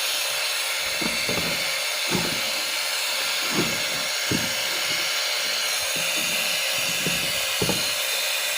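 Steady hiss from a Sony home theater's speaker output where music should be playing, with faint irregular low pops. It is the sign of the unit's sound fault: the song does not come through clearly.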